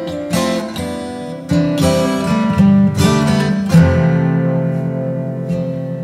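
Background music: an acoustic guitar strumming and picking chords, with a chord left ringing in the last two seconds.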